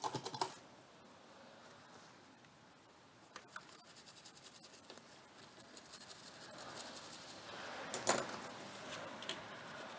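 A small brush scrubbing the soldered area of a MacBook logic board: quick, faint, scratchy bristle strokes. They start about three seconds in and grow a little louder and denser later on.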